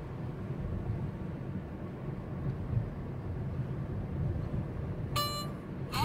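Steady low rumble of a car driving, heard from inside the cabin. Near the end there is a short, high beep-like tone.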